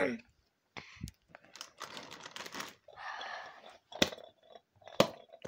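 Handling noise from hands moving fidget toys right by the phone's microphone: rustling and crinkling in the middle, with three sharp knocks about a second apart from each other near the start and end.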